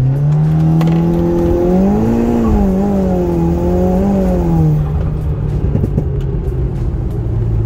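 Audi TTS's turbocharged 2.0-litre four-cylinder engine heard from inside the cabin under hard acceleration, its note climbing steeply at the start and wavering in pitch. About five seconds in the note falls back and settles lower.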